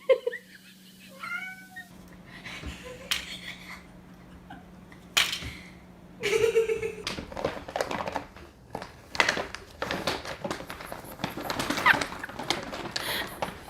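Cat meowing in short calls that bend in pitch, followed by a run of rustling and knocking sounds.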